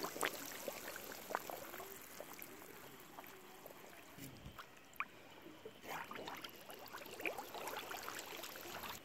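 Canal water sloshing and trickling as a person wades and handles floating banana-trunk fish traps, with scattered small plops and clicks at the surface.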